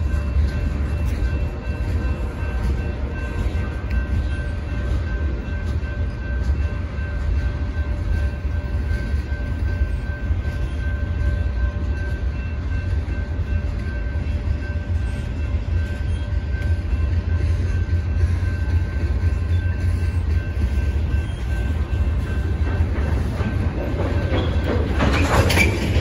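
Freight cars of a long mixed freight train rolling past, a steady low rumble of wheels on rail with a few faint steady tones over it. It grows louder with a rattling rush near the end.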